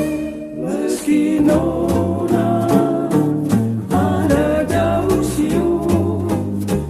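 Instrumental break of a Moluccan (Ambonese) pop song. A Hawaiian-style steel guitar plays the melody in sliding notes over guitar, ukulele and bass accompaniment with a steady beat.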